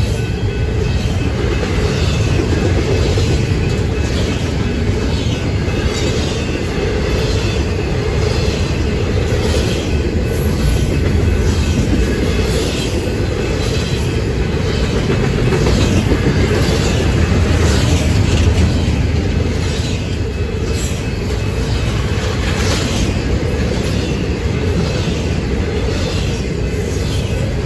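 Double-stack intermodal container train rolling past at close range: a steady rumble of the well cars' wheels on the rails, with repeated clicks of the wheels over the rail joints.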